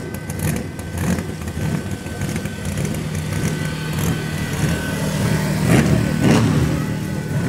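Race car engine running at a steady low pitch, with two short louder surges near the end.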